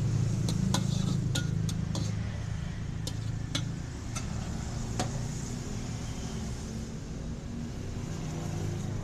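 Sharp clinks of metal cooking utensils, several in quick succession over the first five seconds and then stopping. Under them runs a steady low engine rumble.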